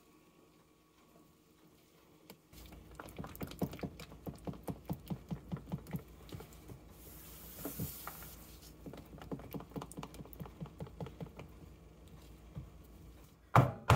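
A wooden soap loaf mold with a silicone liner, full of fresh batter, knocked repeatedly on a countertop to settle the batter: quick, even light knocks, about three or four a second, with a short hiss in the middle. Much louder, slower knocks start just before the end.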